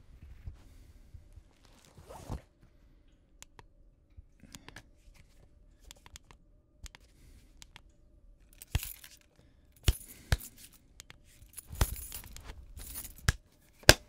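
A handheld flashlight being handled: small clicks, scraping and rattling, busier in the second half, then a sharp click just before the end as it switches on. A faint steady hum runs underneath.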